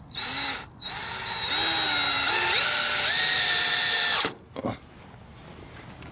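Cordless drill driving a hinge screw into a wooden gate frame: a short burst, then a longer run of motor whine that steps up in pitch a few times and stops suddenly about four seconds in, followed by a brief blip.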